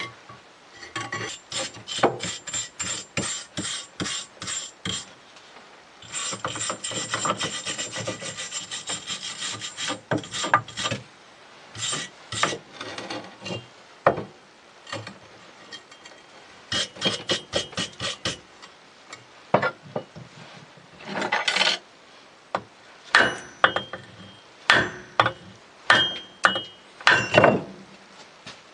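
Repeated hammer blows knocking the sprue and gating off a freshly cast aluminum part: sharp clanks with a brief metallic ring, in runs of about three blows a second with short pauses between.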